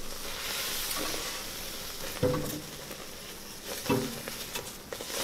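Butter and mini marshmallows sizzling in a stainless steel pot on a gas stove as a spatula stirs them, with a steady hiss. Two brief, louder pitched sounds come about two and four seconds in.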